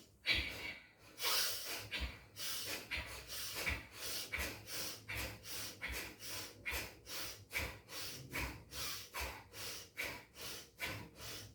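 Bhastrika pranayama (bellows breath): rapid, forceful breaths in and out through the nose, a sharp rushing breath about two to three times a second, kept up steadily and quickening slightly.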